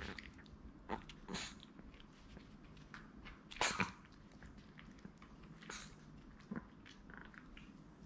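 Two Maltese dogs, one wearing a plastic cone, playing face to face: about five short, breathy bursts of dog play noise, the loudest a little past three and a half seconds in.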